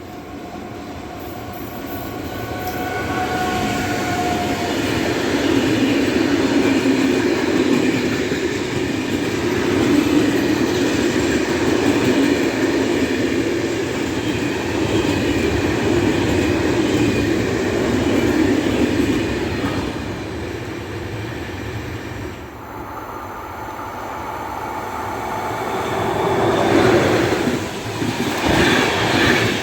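A train passing close by on the rails: it builds up over the first few seconds, then runs loud and steady with wheels rumbling and clattering on the track. It eases briefly about three quarters of the way through, then swells again near the end.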